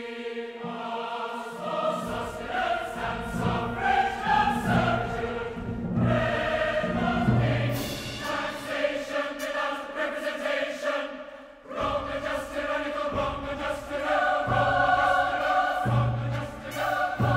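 Large mixed choir with symphony orchestra singing fortissimo in a contemporary choral-orchestral work, declaiming the words 'taxation without representation', 'wrong, unjust, tyrannical' and 'no corn laws' over repeated accented orchestral chords. The sound drops away briefly about twelve seconds in, then builds again.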